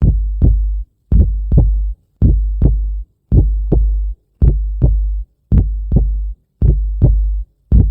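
Intro music built on a heartbeat-like beat: a double thump repeating about once a second, each pair over a deep bass tone that cuts off abruptly.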